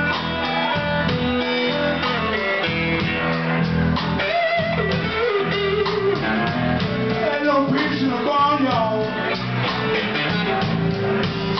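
Live blues band: a Stratocaster-style electric guitar plays a solo with bent, sliding notes over drums.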